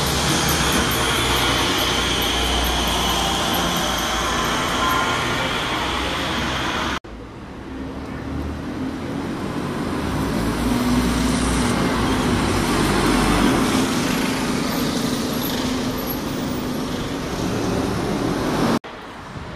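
Diesel buses in street traffic. A double-decker's engine runs as it passes close by. After a sudden cut, a single-deck bus's engine builds up as it pulls away and then eases off, and a second sudden cut comes near the end.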